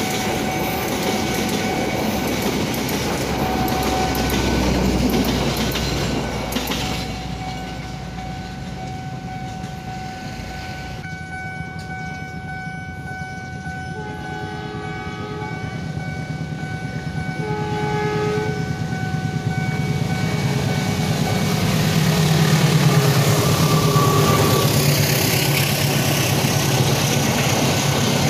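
A long-distance passenger train's wheels rumbling past and fading out, then a second express train approaching. Its locomotive horn sounds two blasts a few seconds apart around the middle, and the train's rumble and rail clatter then build until it passes close by near the end. A steady ringing warning tone from the level crossing's alarm runs underneath.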